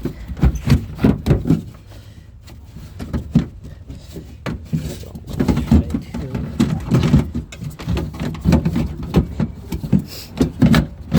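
Irregular clicks, knocks and rattles of a 2008 Honda CR-V's front door lock actuator and latch assembly being worked by hand out of the door's inner cavity, knocking against the door's sheet metal as its linkage rod catches.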